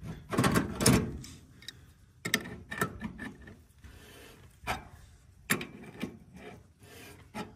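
Two crescent wrenches clicking, knocking and scraping on a brass quick-connect refrigerant line-set fitting as they are set on and turned to tighten it. A scatter of sharp metal clicks, the heaviest knocks and rubbing in the first second or so.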